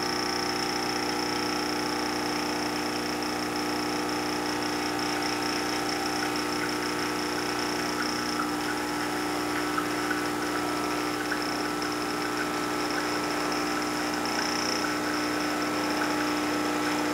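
Briel ES62AF espresso machine's vibratory pump running steadily with an even hum while it pushes water through the coffee puck, pulling an espresso shot.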